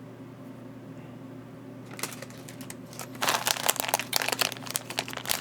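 Crinkling and crackling of handled plastic, sparse at first and dense from about three seconds in, over a steady low hum.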